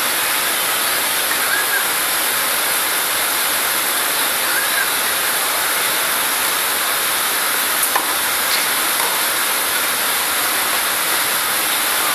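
Steady, loud hissing noise, strongest in the high treble, with a faint click about eight seconds in.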